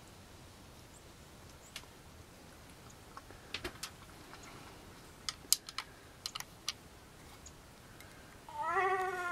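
A few scattered sharp clicks over a faint background. Near the end a long, wavering, nasal moose-style call begins, louder than anything before it.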